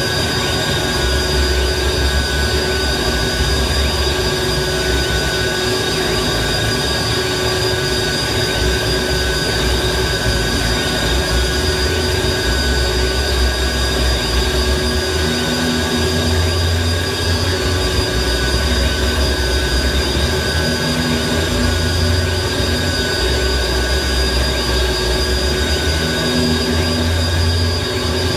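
Harsh electronic noise music played live: a dense wall of hiss and grinding with several steady high tones held over it, and a deep bass throb that swells and drops every few seconds.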